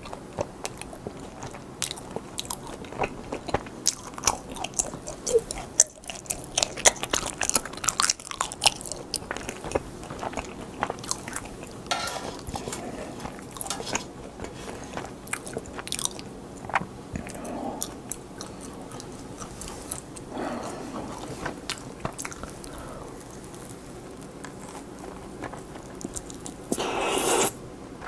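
Close-miked chewing and biting of pan-fried hotteok dumplings, with many sharp wet mouth clicks and crunches. Near the end comes a louder noisy suck lasting about a second, lips pressed to a juicy bitten dumpling.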